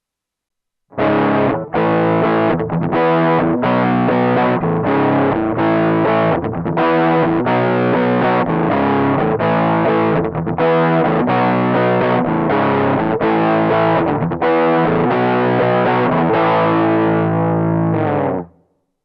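Electric guitar played through a Line 6 Pocket POD amp modeler with a distorted amp model: a riff of chord stabs with short gaps, starting about a second in and stopping near the end.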